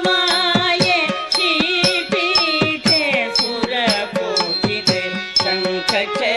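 Carnatic music for a Bharatanatyam dance: a melody full of sliding, wavering ornaments over a regular percussion beat of about two strokes a second.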